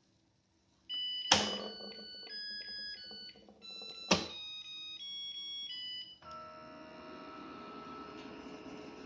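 Zojirushi NP-ST10 electronic rice cooker being test-run after repair of its H17/E17 fault: a button click followed by its electronic beep melody, twice, then a steady hum sets in about six seconds in as the cooker starts running.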